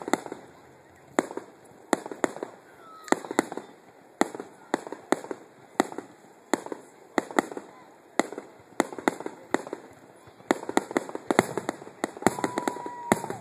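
Aerial fireworks display finale: shells launching and bursting in a string of sharp bangs, one to three a second, which come faster and denser for the last few seconds. A steady whistle lasts about a second near the end.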